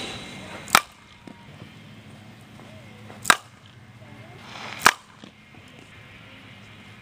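Fastpitch softball bat hitting softballs in batting practice: three sharp cracks, a couple of seconds apart.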